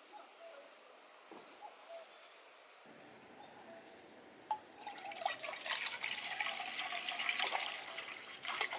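Water suddenly starts running from a tap and splashing about halfway through, after a few faint chirps in a quiet background.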